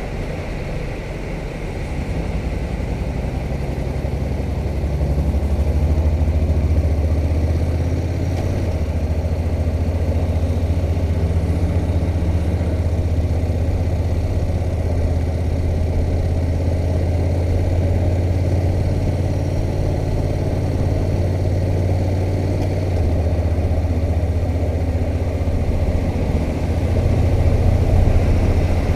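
Honda NC700X motorcycle's parallel-twin engine running under way on the ride, a steady low note that steps down in pitch about a third of the way in and back up in two steps near the end.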